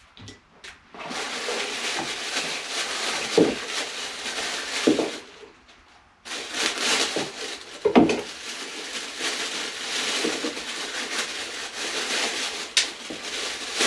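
Packaging rustling and being pulled apart while parts are taken out of a box, in two long stretches with a few knocks of items being set down.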